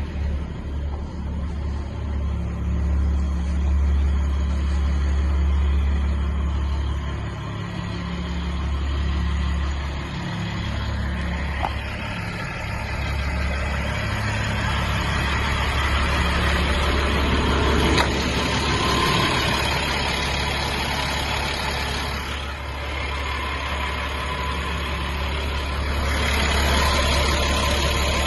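Ford F650 box truck's Caterpillar diesel engine running with a steady low hum. About halfway through, a rushing road-and-wind noise rises over it, and a single sharp click comes near the two-thirds mark.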